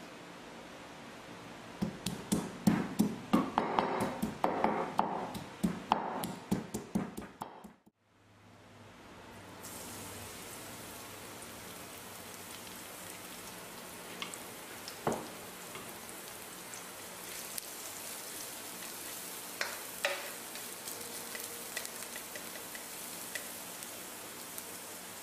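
Pestle pounding garlic and Thai chilies in a clay mortar, rapid sharp knocks for several seconds. After a cut about eight seconds in, garlic and chili frying gently in oil in a wok on low heat, a steady sizzle with a few light spoon clicks.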